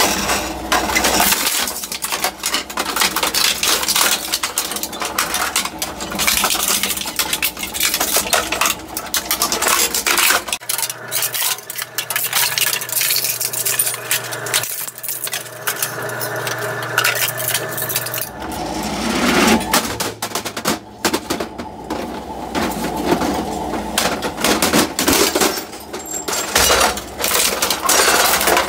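Twin-shaft shredder's cutter discs chewing through a printer's plastic housing: a continual run of sharp cracking, crunching and clinking as the plastic breaks apart.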